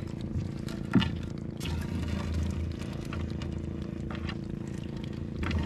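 Gill net being hauled by hand into a wooden outrigger canoe: rustling of the mesh and light knocks against the hull, with one sharper knock about a second in. A steady low hum runs underneath.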